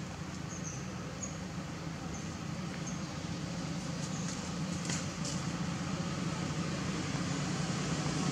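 Steady outdoor background noise, an even hiss over a low hum, with a few faint short high chirps in the first few seconds.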